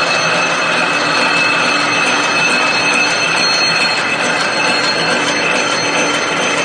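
Single-wire barbed wire making machine running: a steady, dense metallic clatter of gears, shafts and the wire-twisting head, with thin, high steady whining tones over it.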